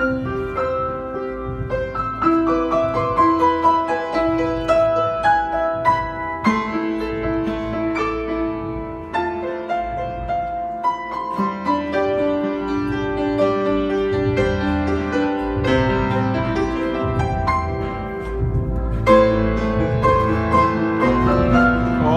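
Acoustic piano played by hand: an unhurried melody of held notes over chords, with no pauses.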